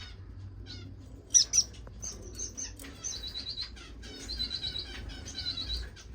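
Several small caged finches chirping, a busy mix of short, high calls. Two sharp, louder chirps come about a second and a half in, and from about halfway there are quick trills of repeated notes.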